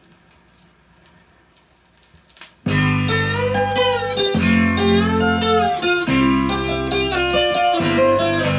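Faint crackle and small clicks of a stylus riding the lead-in groove of a vinyl record on a Technics SL-B300 turntable, then about two and a half seconds in the record's music starts abruptly: a country song opening on plucked guitar.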